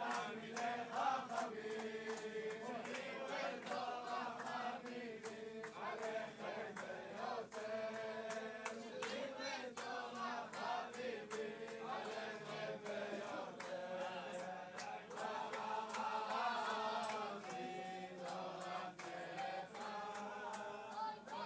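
A large crowd of men singing a slow melody together in unison.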